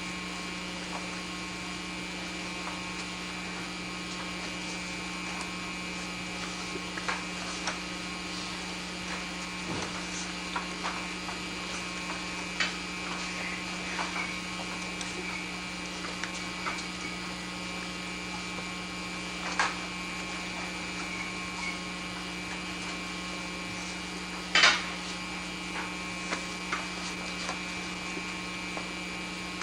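Steady electrical mains hum with several tones, scattered with faint clicks and knocks and one louder knock near the end.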